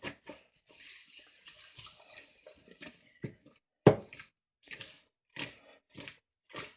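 Oiled, seasoned potato slices being tossed in a bowl: a soft sliding shuffle of the slices against the bowl, then one loud knock a little over halfway through, followed by short tossing strokes about twice a second.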